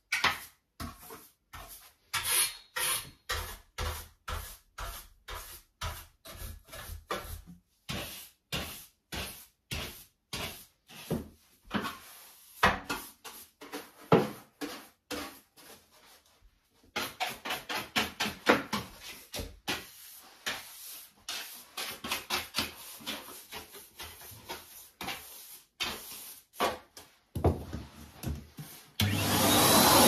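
A stiff hand brush swept in quick strokes over a toilet and the pipework beside it, about three strokes a second with a short pause midway, brushing off sanding dust. About a second before the end a Henry canister vacuum cleaner switches on and runs steadily.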